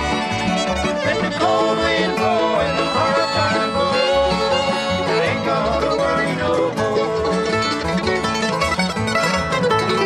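Acoustic bluegrass band playing an instrumental break with no singing: a fiddle plays the lead with sliding notes over plucked string backing.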